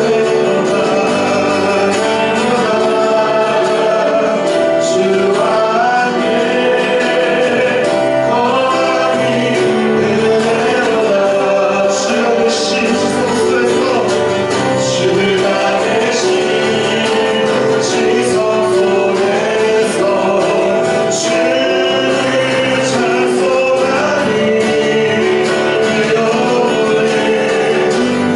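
Praise band playing a worship song, with voices singing over the instruments.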